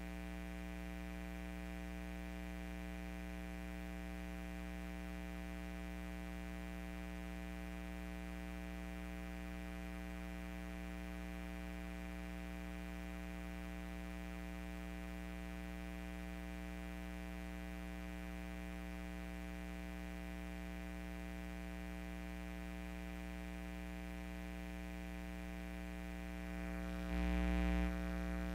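Steady electrical hum: a low, unchanging buzz with many overtones. It gets louder for about a second near the end.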